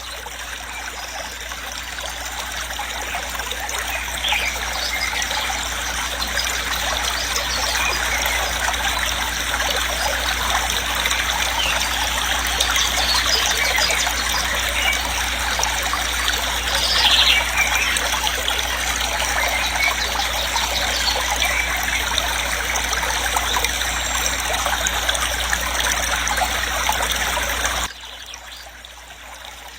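Waterfall: a steady rush of falling water that swells over the first few seconds and drops off sharply near the end.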